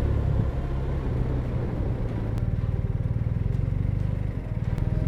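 BMW R1250 RT motorcycle's boxer-twin engine running with a steady low drone.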